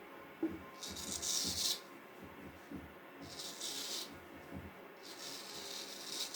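A straight razor blade worked in three slow rubbing strokes, each about a second long and heard mostly as a high hiss, with a few light knocks in between.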